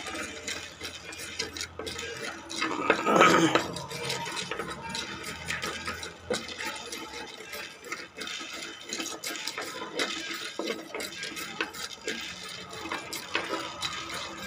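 A spoon stirring and scraping black pepper and cumin seeds as they dry-roast in a clay pot, a steady run of small scrapes and seed rattles, with one louder moment about three seconds in.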